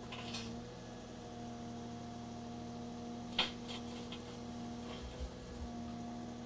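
Cat 305 CR mini hydraulic excavator running in the background with a steady hum, with one short knock about three and a half seconds in.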